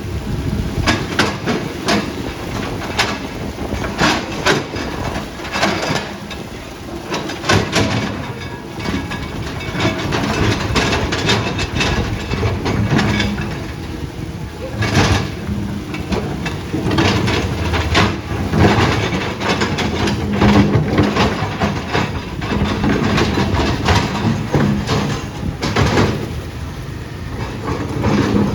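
Diesel engine of a tracked earthmoving machine working, with irregular metal clanks and knocks from the tracks and blade or bucket.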